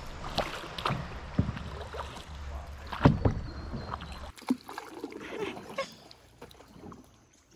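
Canoe paddle strokes: a double-bladed paddle dipping and splashing in calm river water in a series of short, uneven hits, the loudest about three seconds in. A low wind rumble on the microphone stops abruptly partway through.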